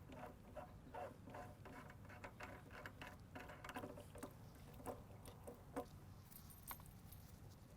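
Faint, irregular clicks and taps of hands handling and disconnecting parts of a satellite terminal during teardown, a few slightly louder knocks among them.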